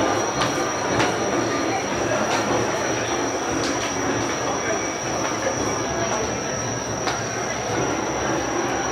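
Train running on rails: a steady rumble with a thin, high whine held throughout and a few faint clicks.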